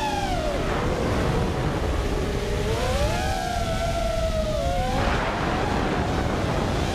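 FPV quadcopter's brushless motors and propellers whining, their pitch dropping in the first second, climbing again about two and a half seconds in, then wavering and fading about five seconds in. A steady rush of wind on the onboard camera's microphone runs underneath.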